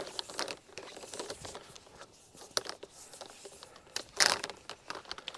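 Irregular rustling and crackling, with a louder rustle about four seconds in.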